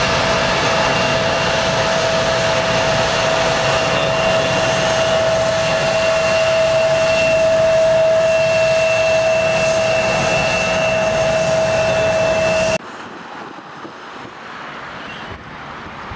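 Three-engined jet airliner taking off: loud, steady jet engine noise with a high whine held on two steady notes. The noise cuts off sharply about three-quarters of the way through, leaving fainter wind noise on the microphone.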